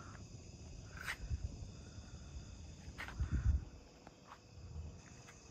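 Steady high chirring of night insects, crickets, with a few soft clicks and a low bump about three seconds in.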